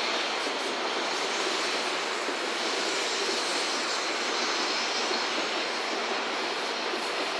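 N700-series Shinkansen train rolling past on an overhead viaduct: an even rushing noise from the wheels and running gear, with no clicks or rhythm.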